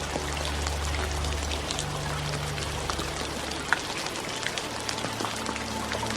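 Steady rainfall: an even hiss of rain with many small individual drops ticking on a surface.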